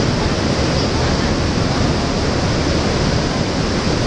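Water rushing through a wooden canal lock gate into the lock chamber, a loud, steady rush.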